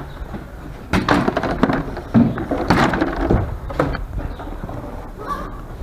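Irregular knocks and clatter of things being handled, with a short pitched sound about five seconds in.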